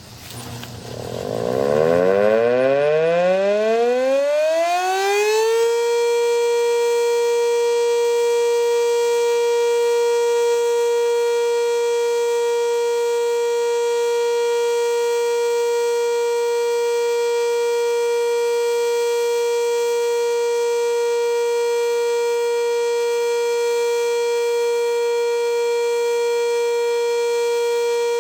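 Sentry 3V8 civil defense siren winding up, its pitch rising over about six seconds, then holding a loud, steady tone for a routine weekly test.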